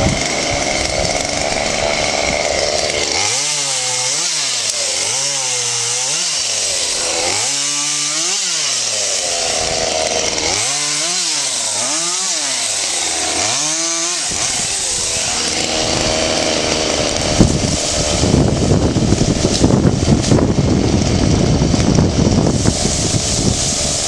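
Chainsaw running, its engine revved up and down over and over, about once a second. About 17 seconds in comes a sharp crack, then several seconds of loud, noisy crackling and crashing.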